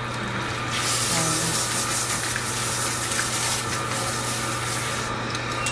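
Salon shampoo-bowl sprayer hose running, water spraying onto hair and splashing into the basin. The spray starts about a second in and stops shortly before the end.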